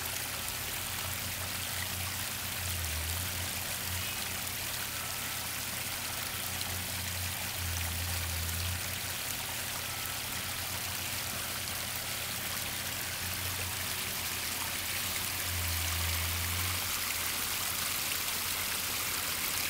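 Newly built waterfall: water spilling and splashing in a steady, unbroken rush.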